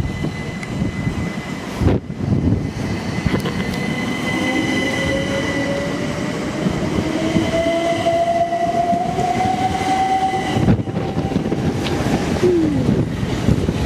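Train passing the platform, a whine rising steadily in pitch for several seconds as it picks up speed, with wind rumbling on the microphone.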